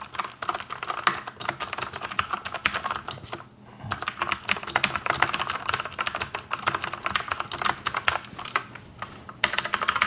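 Fast, continuous typing on a Keychron mechanical keyboard with clicky switches, only some of which are lubed. There is a brief pause about three and a half seconds in.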